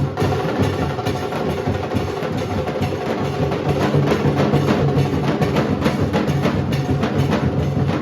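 Nasik dhol ensemble drumming: large dhols and sharp stick strikes in a fast, loud, continuous rhythm.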